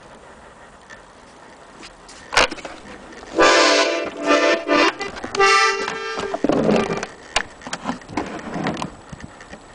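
Vintage Pietro accordion: a sharp knock, then two short chords from its reeds as the bellows move, followed by softer airy rustling and small handling knocks.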